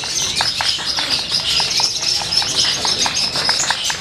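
Caged songbirds, among them a long-tailed shrike (cendet), singing together in a dense, unbroken chatter of high chirps, with a short lower note repeated about three times a second.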